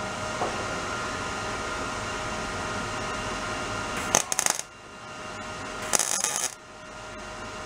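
Two short tack welds on a thin exhaust pipe, each a half-second burst of welding-arc crackle, about four and six seconds in, over a steady hum. The welds are running too cold for a good bead: the heat is being turned up.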